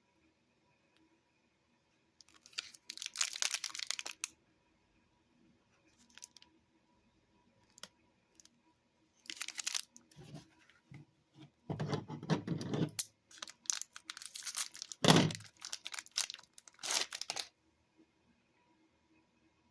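Granola bar packaging being torn open and crinkled in several bursts, with a sharp thump about fifteen seconds in.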